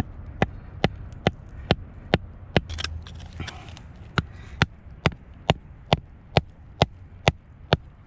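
Small sledgehammer striking a steel chisel against limestone in steady, sharp blows, a little over two a second. The blows drive the chisel into the seam where the calcite crystal meets the rock, to split the crystal loose.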